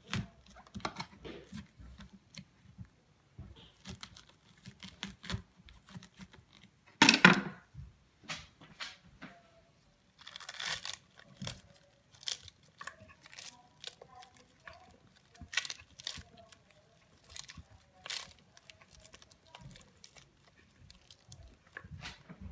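A pomegranate being cut with a knife and then torn apart by hand: scattered cracks, snaps and tearing of the rind, with a loud crack about seven seconds in.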